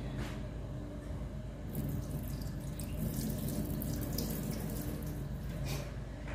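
Kitchen sink tap running steadily for about four seconds, starting about two seconds in and stopping shortly before the end, likely filling a plastic container.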